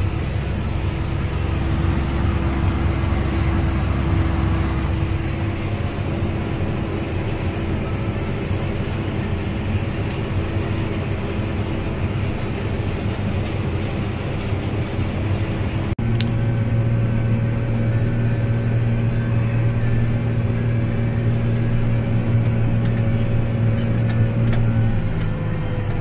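Farm tractor engine droning steadily, heard from inside the cab. About two-thirds of the way in, the sound switches to a different steady engine drone with a stronger low hum and a faint higher whine.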